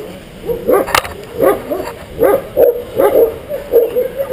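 A guard dog barks over and over, about two short barks a second. There is a single sharp click about a second in.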